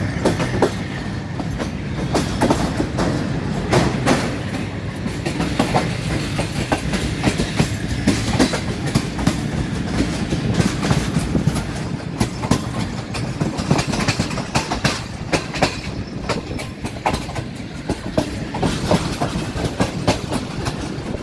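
Moving passenger train's wheels clattering over the rail joints: a steady clickety-clack of quick repeated clacks over a constant low rumble, heard close to the track from the side of the running carriage.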